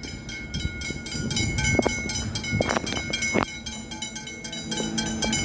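Level crossing bells ringing in rapid, even strokes. A train's steady hum rises beneath them near the end as it approaches.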